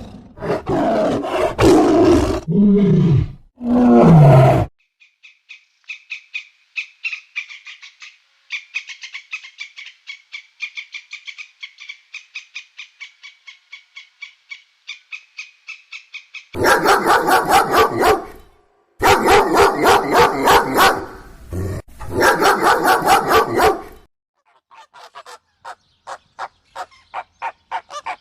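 A succession of animal calls. It opens with loud, deep roars for the first few seconds. A long run of fast, high-pitched chirping follows. From about two-thirds of the way in come loud calls repeated several times a second, ending in quieter rapid pulses.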